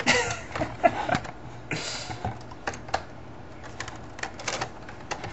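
A toddler banging on a computer keyboard, its keys clacking in an uneven scatter of clicks.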